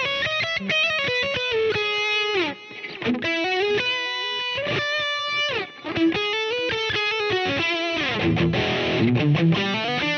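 Grote GRHL-2 headless electric guitar played on its bridge humbucker through a driven amp tone: a lead line of single notes with bends and slides, turning into heavier distorted chords from about eight seconds in.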